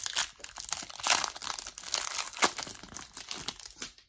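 Clear plastic trading-card pack wrapper crinkling and tearing as the pack is opened. It is a dense crackle with a few sharper snaps, and it stops just before the end.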